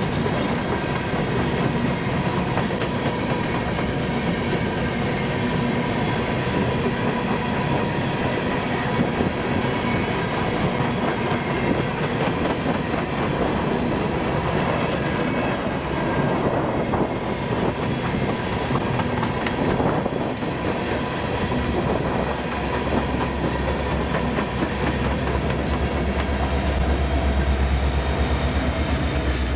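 Empty coal hopper cars rolling past at speed, a steady rumble with fast clicking of steel wheels on the rails. Near the end a diesel locomotive pushing at the rear of the train comes by, adding a heavy low engine rumble and a high whine.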